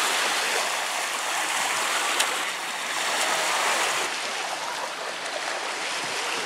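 Small lake waves washing onto a sandy beach, a steady hiss of water, with a brief click about two seconds in.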